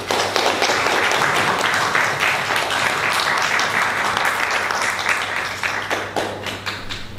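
Audience applauding at the end of a lecture. The clapping is loud and dense at first, then thins out to scattered claps from about six seconds in.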